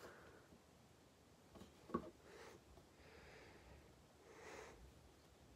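Near silence: a single soft tap about two seconds in and faint handling noise from a cardboard box being turned in the hands.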